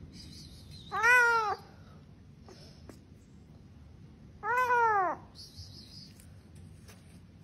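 A cat trapped down a floor drain meowing twice, about three seconds apart, each meow a cry that rises and then falls in pitch.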